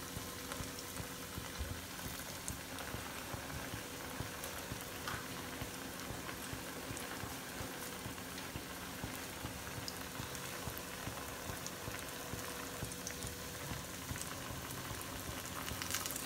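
Potato-corn-cheese tikkis deep-frying in hot oil in a pan: a steady bubbling sizzle of the oil, with the odd faint crackle.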